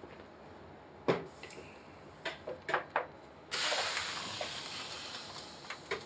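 Pans and a utensil knocking a few times on the stovetop, then a sudden sizzling hiss from a hot pan that fades over about two seconds.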